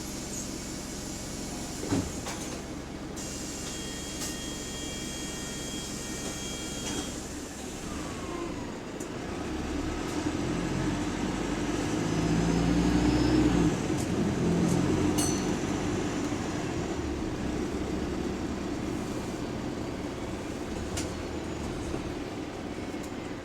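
Bus running, heard from inside: steady engine and road noise, with a sharp click about two seconds in and a steady tone held for a few seconds soon after. The engine grows louder for several seconds around the middle.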